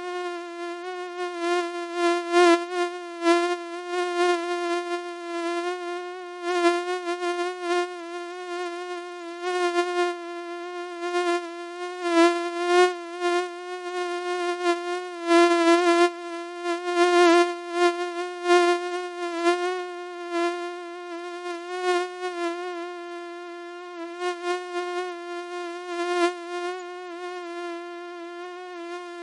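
Mosquito wing whine: a continuous high-pitched buzz with a slight waver in pitch, swelling louder and fading again over and over as if the insect flies close and away.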